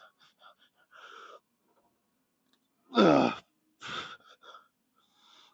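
A man breathing hard from exertion, with short sharp exhales and one loud groaning sigh that falls in pitch about three seconds in, from the strain of a heavy lifting set.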